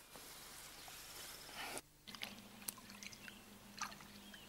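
Faint water sloshing and splashing as live fish are tipped from a plastic tub into a river; the sloshing cuts off about two seconds in, leaving a few small drips and splashes.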